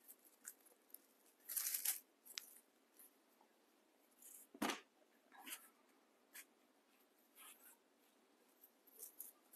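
Faint, scattered rustling of raffia and fabric being handled, with a single knock about four and a half seconds in as a twine-wrapped base is set down on the table.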